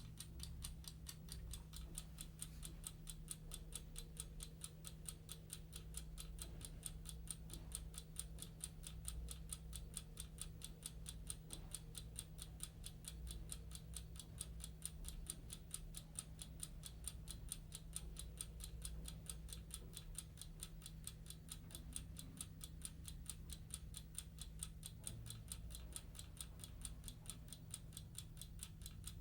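A clock ticking faintly in rapid, even ticks over a low steady hum.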